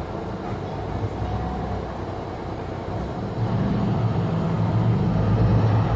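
Mercedes-Benz Citaro C2 G articulated bus engine, heard from inside the bus, idling at a stop and then rising in level as the bus pulls away a little over three seconds in.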